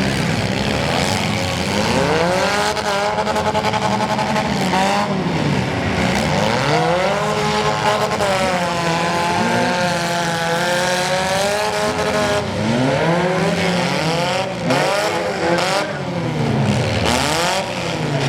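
Four-cylinder demolition derby car engines revving: two long revs that climb and hold for several seconds before dropping back, then a run of short, quick revs near the end.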